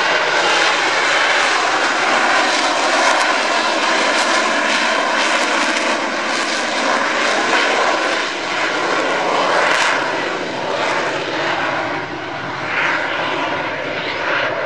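AV-8B Harrier II's Rolls-Royce Pegasus vectored-thrust jet engine in display flight: loud, continuous jet noise carrying the Pegasus's whistle, easing a little in the second half.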